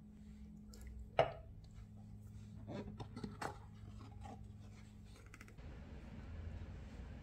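A sharp knock about a second in, then several lighter knocks and scrapes as a wooden serving board holding a frosted cake is handled on a countertop. A steady low hum underneath stops near the end.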